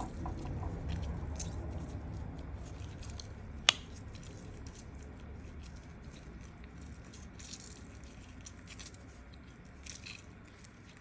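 Hands working citrus fruit for juice: soft wet squishing and small clicks over a low rumble, with one sharp click a little under four seconds in.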